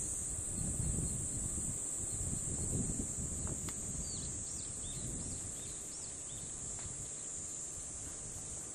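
Wind buffeting the microphone over a steady high-pitched insect drone, with a bird giving a string of short chirps a few seconds in. The wind rumble eases off toward the end.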